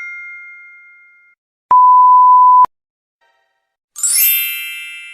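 A steady, single-pitched high beep lasting about a second, the standard censor-bleep sound effect, between the fading tail of one chime and a bright, shimmering chime about four seconds in that rings on and fades.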